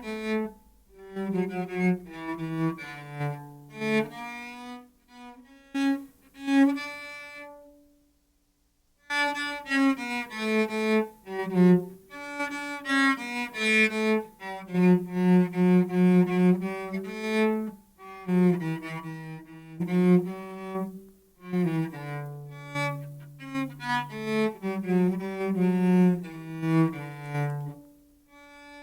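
Instrumental music: a single melody line of held notes in a low-to-middle range. It stops briefly about eight seconds in, then goes on.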